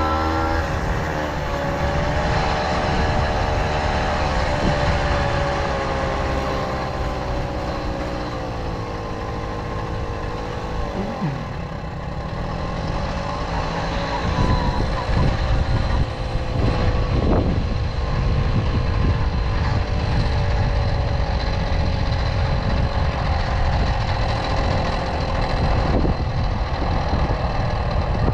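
Tomos Silver Bullet moped's small two-stroke engine running while being ridden. Its pitch falls over the first ten seconds as it slows, then it runs on steadily under a heavy low rumble.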